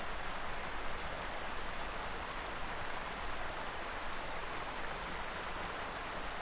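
Spring water rushing steadily down a narrow stone channel in a small cascade, an even splashing hiss.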